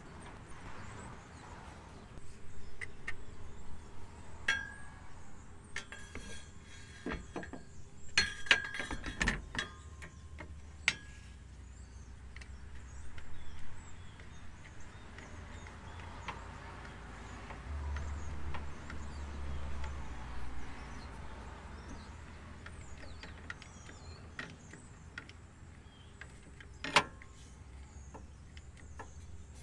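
Scattered metallic clinks and clicks of hands and tools at work under a car, fitting rubber exhaust hanger mounts onto the exhaust hanger rods, with a few low knocks of the pipe being moved. The clinks bunch together about a third of the way in, and there is one sharp click near the end.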